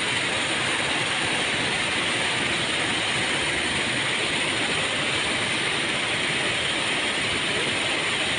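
Flash-flood water rushing and churning in a fast, muddy torrent: a steady, unbroken rushing noise.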